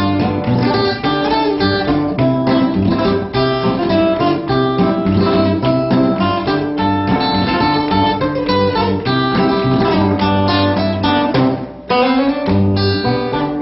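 Acoustic guitar music: quick plucked notes over a steady bass line, with a brief drop in level about twelve seconds in.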